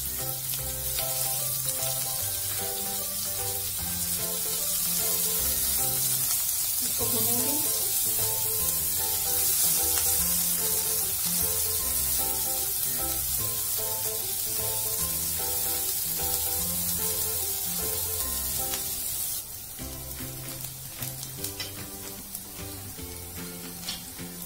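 Chopped onions and cumin seeds sizzling as they fry in hot oil in a nonstick pan, stirred now and then with a silicone spatula. The sizzle drops suddenly near the end. Background music with a steady beat plays throughout.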